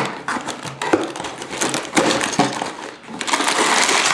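Cardboard LEGO box being torn open by hand along its perforated tab, a run of sharp tearing cracks. From about three seconds in comes a dense rustle of the plastic parts bags crinkling as they are pulled out.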